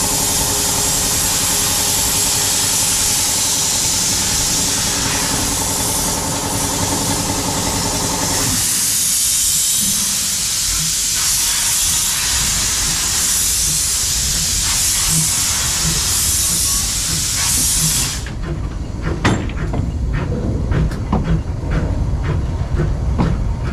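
Small steam tank locomotive hissing loudly as steam blows out at its side while it pulls away, with a steady hum underneath that stops about a third of the way in. The hiss cuts off suddenly about three-quarters through, leaving the rumble and clanks of the loco moving along the track.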